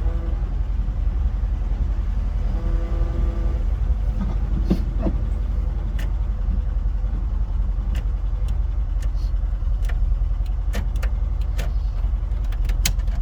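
VW T25 van's engine idling with a steady low rumble, and from about six seconds in a run of sharp, irregular clicks.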